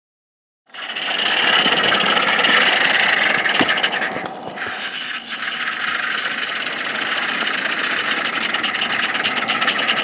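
Two live-steam garden-scale locomotives working hard, hissing steam with rapid, even exhaust beats as they push a snowplow through snow. The sound starts abruptly just under a second in.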